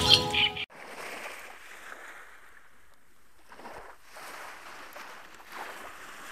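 Music cuts off abruptly less than a second in. After that, small waves wash softly onto a sandy shore, a gentle hiss that swells and fades a couple of times.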